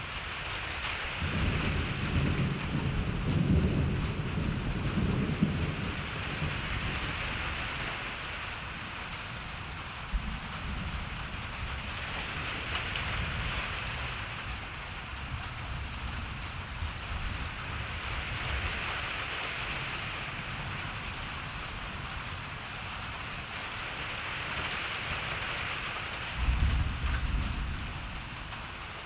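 Steady rain falling, with two rolls of thunder: a long low rumble in the first few seconds and a shorter, louder one near the end.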